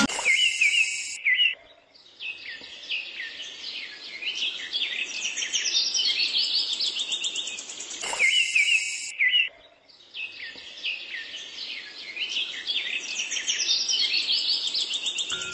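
Many small birds chirping rapidly and densely, with brief lulls about two seconds and ten seconds in. The passage repeats about eight seconds in: a looped birdsong ambience track.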